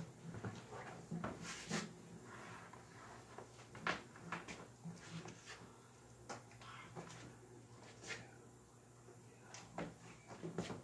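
Handling noise of an acoustic guitar being picked up and its strap slung on: scattered faint knocks, clicks and rubbing, a few of them louder.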